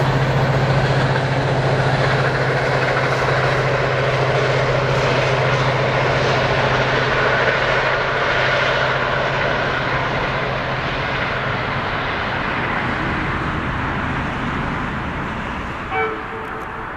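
Locomotive-hauled passenger train running past on the rails: steady rumble and wheel noise with a low hum, slowly fading as it draws away. A short pitched toot sounds about a second before the end.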